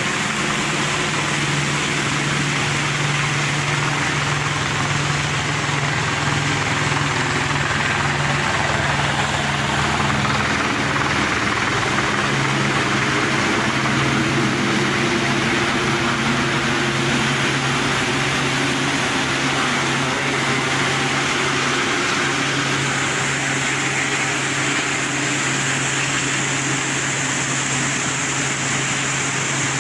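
Motor vehicle engine running steadily, a continuous low hum with no change in pace.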